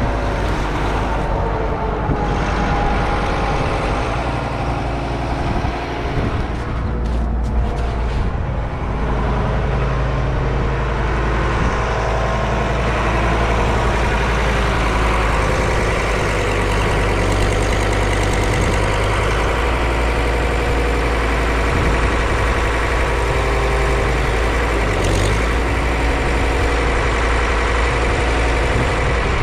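Farm vehicle's diesel engine running steadily, a continuous low hum with only small shifts in pitch.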